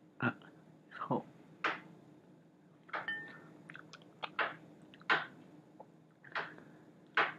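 A person biting into and chewing a chicken wing: a string of short, irregular crunching chomps, roughly one or two a second.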